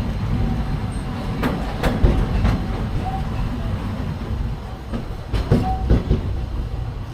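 Walt Disney World Railroad train heard from aboard: a steady low rumble of wheels on the rails, with scattered sharp clicks and knocks from the track, clustered a couple of seconds in and again near the end.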